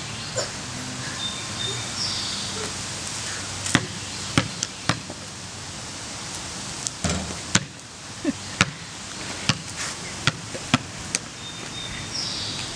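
A basketball bouncing on a concrete driveway: about a dozen sharp, irregularly spaced bounces, most of them between about 3.5 and 11 seconds in.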